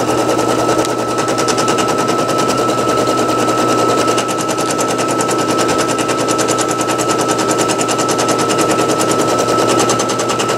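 Brother PE800 embroidery machine stitching out a design: a rapid, even clatter of needle strokes over a steady motor whine.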